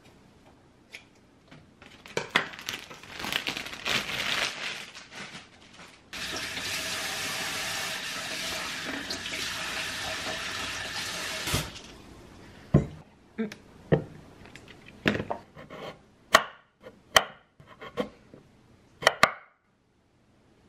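Kitchen scissors snipping green onions amid rustling, then a tap running steadily into the sink for about five seconds to rinse them. After that, a kitchen knife knocks on a bamboo cutting board with slow single cuts through a carrot, about ten sharp knocks, the loudest sounds here.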